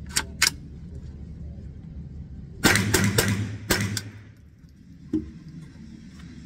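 Two sharp clicks as the rifle's action is handled, then, about two and a half seconds in, a quick string of about four .22 rifle shots in a second, echoing in an indoor range.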